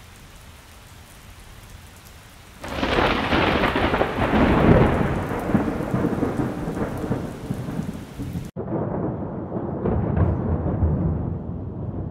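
Faint rain hiss, then about two and a half seconds in a sudden loud rumble of thunder that rolls on and slowly fades. It cuts out for an instant about eight and a half seconds in and rumbles on, duller.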